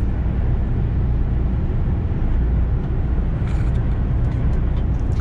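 Steady low drone of a Mercedes truck cruising at motorway speed, heard inside the cab: engine and tyre rumble.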